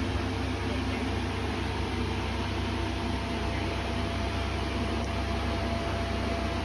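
Electric inflation blower of an inflatable bounce house running steadily: a constant low hum with a rushing of air, and a faint steady higher tone joining about two seconds in.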